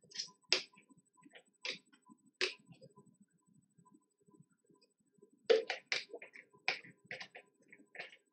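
A person drinking from a water bottle: scattered soft clicks and taps of the bottle and mouth, with a quick cluster of clicks about five and a half seconds in.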